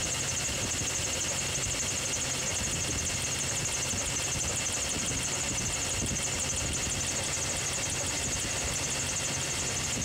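2005 Chevrolet Silverado's 4.3-litre V6 running steadily at idle under the hood with one cylinder's ignition wire pulled off for a spark test, so three cylinders are misfiring.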